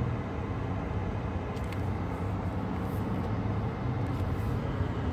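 Car cabin noise while driving: a steady low hum of engine and tyres on the road, heard from inside the car.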